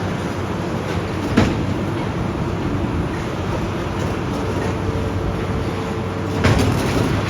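Heavy demolition machine's diesel engine running steadily, with a sharp crack about a second and a half in and a louder crunch of breaking debris near the end.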